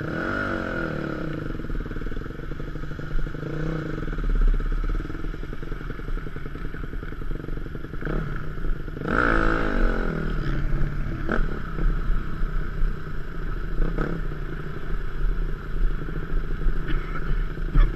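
Yamaha YZ250F four-stroke dirt bike engine running under the rider, revving up through the gears near the start and again about halfway through, with wind rumble on the helmet microphone.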